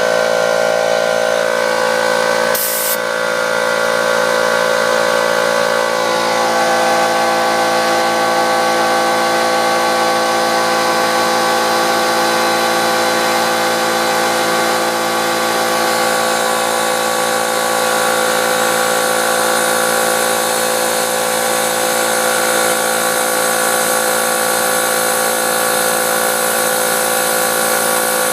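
Air compressor running steadily, pumping air into a flat lawnmower tire to reinflate it. Its tone changes slightly about six seconds in.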